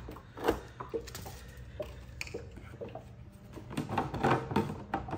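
A metal spoon stirring and knocking in a red plastic cup of baking soda dissolved in water: a string of light clinks and knocks, coming thicker near the end.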